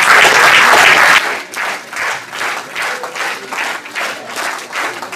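Audience applauding. After about a second the dense applause drops in level and turns into clapping in unison to a steady beat, about two to three claps a second.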